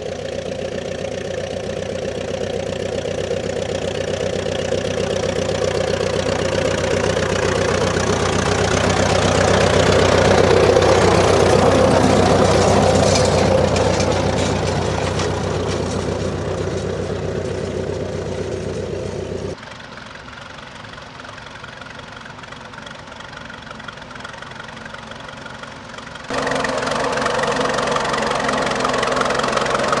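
Vintage International 10-20 steel-wheeled tractor's engine running steadily under load while pulling a plough, growing louder to a peak around a third of the way through and then easing off. It cuts abruptly to a quieter engine sound, then near the end to another tractor's engine running loudly.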